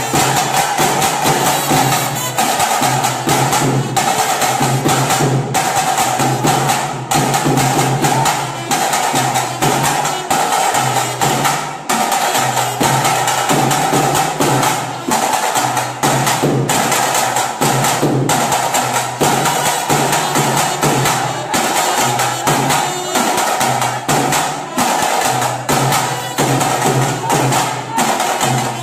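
Loud live festival music: fast, dense drumming with a steady high tone held over it and a low part that comes and goes in blocks.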